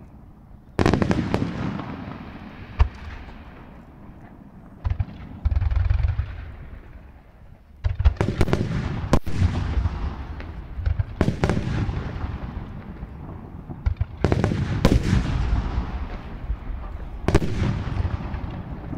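Aerial firework shells bursting: a series of sharp booms every few seconds, several in quick clusters, each trailing off in a long rumbling echo.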